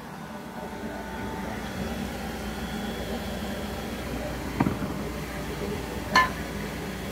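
A steady low machinery drone, with two sharp plastic clicks and knocks as the latches of a hard plastic breathing-apparatus case are unclipped and the lid is opened, the second louder.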